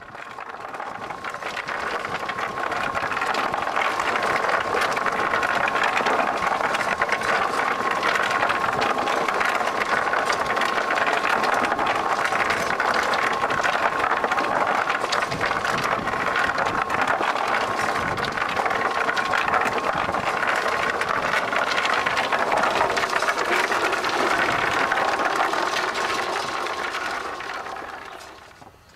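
A machine running steadily: a dense mechanical noise with a constant high hum. It fades in at the start and fades out near the end.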